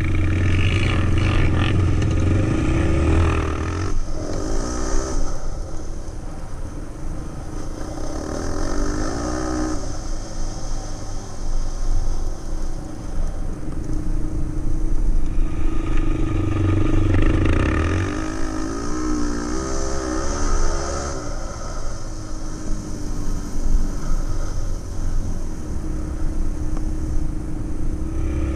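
Quad (ATV) engine ridden under throttle, revving up and dropping back several times as it accelerates and slows, with heavy low engine sound at the hardest pulls.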